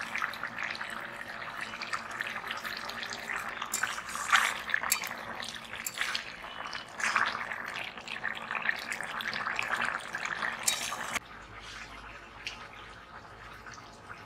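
Thick vegetable curry bubbling and crackling as it simmers in an iron wok, with a few knocks of a metal spatula against the pan. The bubbling turns quieter about eleven seconds in.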